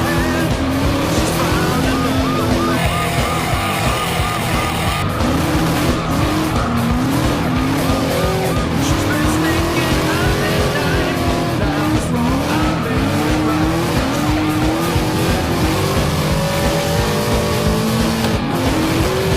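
Motorcycle engines revving and tires skidding, mixed with a rock music soundtrack.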